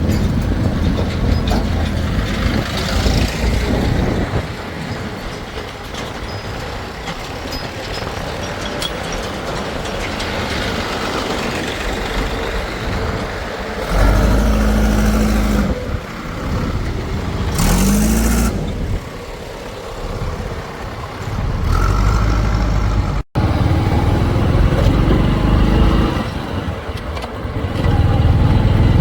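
Diesel engines of heavy farm and earth-moving machinery running under load, the engine sound changing abruptly several times. Partway through there is a short steady tone and then a brief tone that rises and falls.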